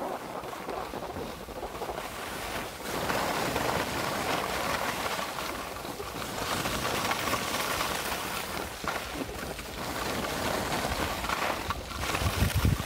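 Skis hissing and scraping over packed snow, rising and falling through the turns, with wind buffeting the microphone near the end.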